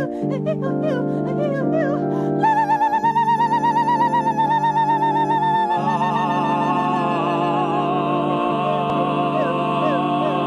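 Wordless singing by several voices over a repeating electric organ figure. It opens with short sliding vocal yelps; about two seconds in a high voice holds a long note with wide vibrato, and past the middle more voices join on wavering held notes.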